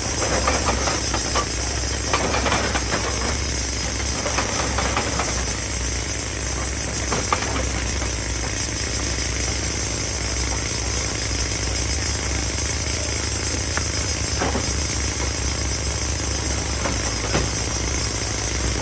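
Excavator engine running steadily, with irregular clanks and rattles of rock against metal, most frequent in the first few seconds.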